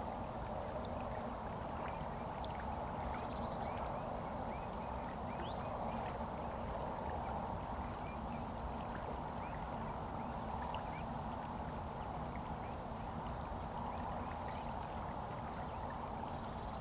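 River water rushing steadily, with faint, scattered chirps of small birds.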